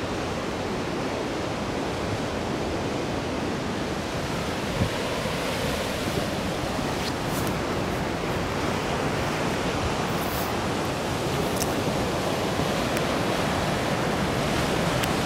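Sea surf breaking and washing over a rocky granite shore: a steady, continuous rush of water. A brief knock sounds about five seconds in.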